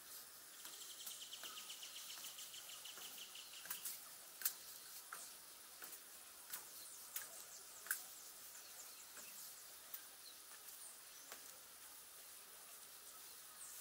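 Birds calling faintly: a fast trill of about ten notes a second lasting about three seconds, then scattered short, sharp chirps, the loudest about four and a half and eight seconds in, over a soft steady outdoor hiss.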